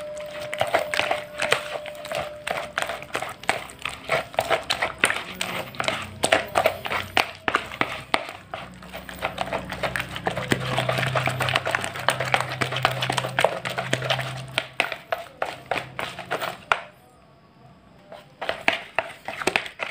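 Wet carp-bait dough of grated bondon and raw duck egg squished and kneaded by hand in a plastic bowl: a fast run of wet squelches and slaps that stops briefly near the end, then starts again.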